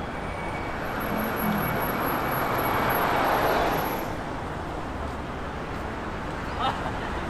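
Street traffic noise, with a vehicle passing close by that swells to its loudest about halfway through and then fades, and a brief chirp near the end.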